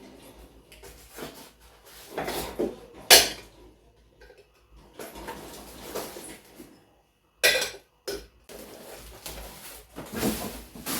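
Ceramic dinner plates from a new dinner set clinking and knocking against each other as they are handled and unpacked. There are several separate clinks, the sharpest a little after three seconds in and a couple more around seven to eight seconds, with quieter handling noise between them.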